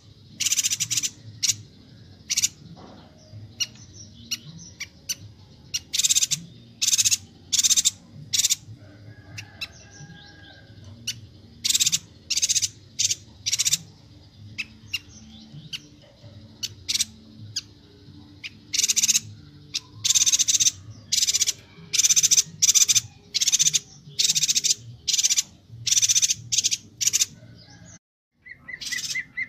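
Bornean yuhina (yuhina kalimantan) calling vigorously: quick series of short, sharp, high-pitched notes, repeated in bursts over and over. Just before the end the sound drops out for a moment and a lower, pulsing note begins.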